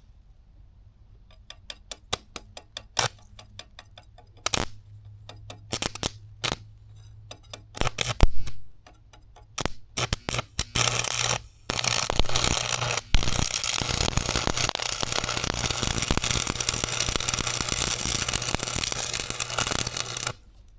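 Arc welding on steel: a few short tack-weld bursts, then a continuous weld of about seven seconds with a steady hiss that cuts off suddenly near the end. Before it come scattered sharp clicks, one louder knock and a low hum.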